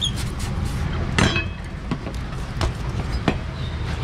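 A knife knocking on a cutting board as a whole salmon is cut up, with about half a dozen sharp knocks, the loudest about a second in.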